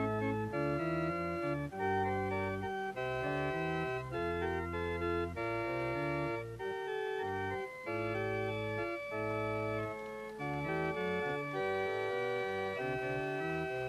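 Church organ playing: full held chords that change every second or so over a deep, moving bass line.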